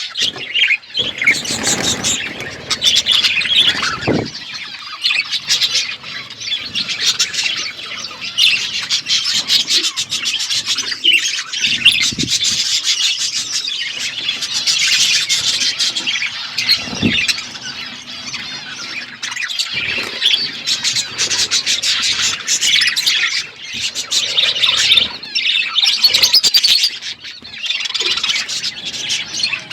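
Budgies and lovebirds chirping and chattering together in a dense, continuous chorus of many overlapping calls, with scattered sharp clicks.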